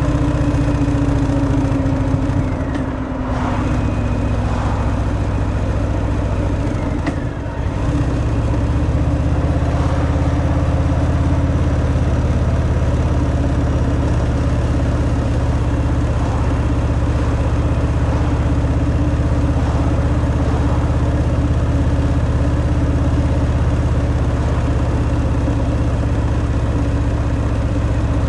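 Harley-Davidson Fat Boy's Milwaukee-Eight 114 V-twin engine running through its stock exhaust while riding at a steady pace. It dips briefly twice, about three and seven and a half seconds in, then holds steady.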